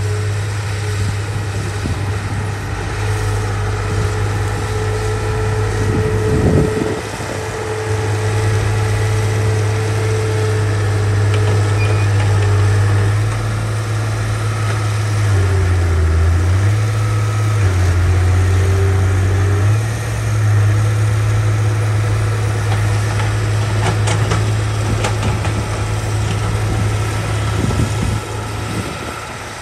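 Heavy diesel engine of earth-moving machinery (bulldozer or excavator) running steadily with a deep hum, its pitch dipping briefly as it takes load about six seconds in and twice more near the middle.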